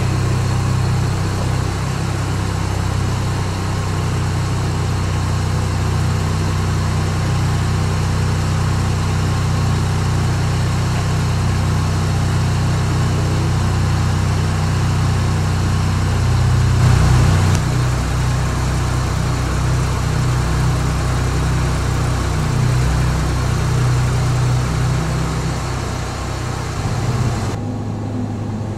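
Ford Focus police car's engine idling steadily, a low even hum.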